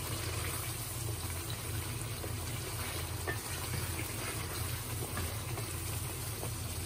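Chicken in thick tomato gravy bubbling in an aluminium karahi over high heat, with a steady low hum beneath. A wooden spoon stirs it, giving a few faint scrapes and knocks against the pan.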